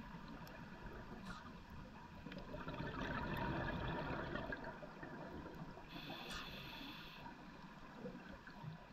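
Scuba diver breathing through a regulator underwater: a rush of exhaled bubbles gurgling up that swells from about two and a half seconds in, then a short inhale through the regulator about six seconds in.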